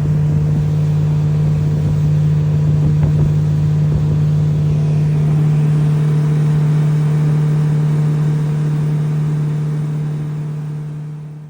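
Motorboat engine running at a steady speed, a constant low hum that fades out near the end.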